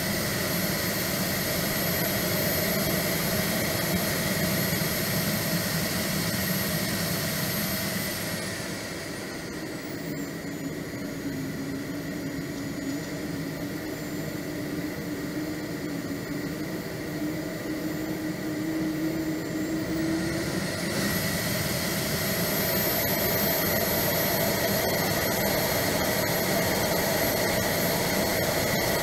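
Swiwin 170B model jet turbine heard from on board the jet, a high steady whine over a dense rush of noise. About a third of the way in it spools down, runs quieter and lower-pitched for around ten seconds, then spools back up to full whine about two-thirds of the way through.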